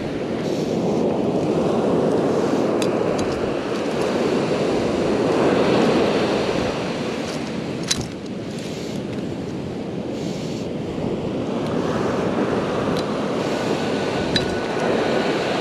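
Surf washing onto the beach in slow swells, with wind on the microphone. There is a single sharp click about halfway through.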